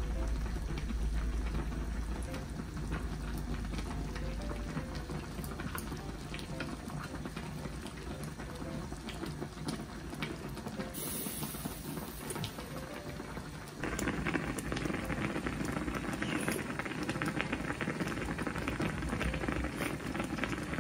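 Broth bubbling in a shabu-shabu hot pot, a steady crackling patter, with mouth sounds of chewing close by. It grows louder about two-thirds of the way through.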